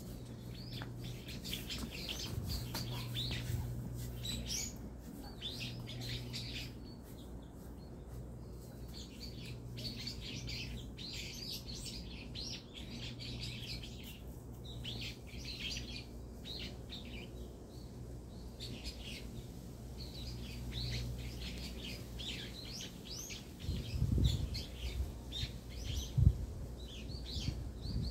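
Small birds chirping, many short high chirps repeating throughout, over a low steady hum. Two dull thumps near the end.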